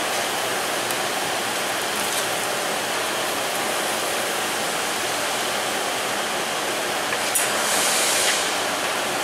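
Steady rushing noise, like an even hiss, with a single light metallic click about seven seconds in and a brief brighter hiss after it.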